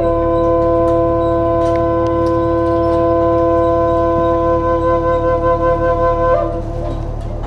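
Wooden Native American-style flute holding two long steady notes together, pulsing and shifting pitch near the end.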